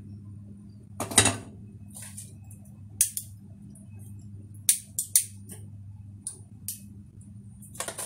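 A black clay cooking pot set down on a gas stove's grate with a knock about a second in, followed by a few sharp clicks and taps of kitchen utensils and another knock near the end, over a steady low hum.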